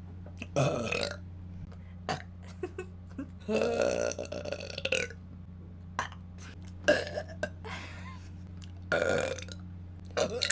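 A woman belching, about five burps of varied length with short gaps between them, the longest lasting about a second and a half near the middle.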